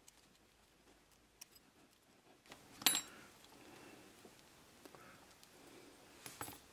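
Hands handling a diecast Hot Wheels car's metal chassis and its wheels: faint rubbing and small ticks, with one sharp click about three seconds in and a couple more clicks near the end.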